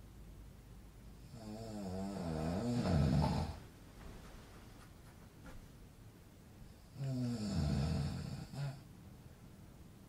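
A man snoring: two long snores about six seconds apart, each with a wavering pitch.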